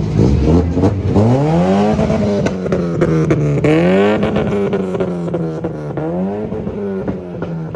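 Car engine revved hard three times, each rev climbing in pitch and dropping back toward idle, with sharp clicks and crackles among the revs.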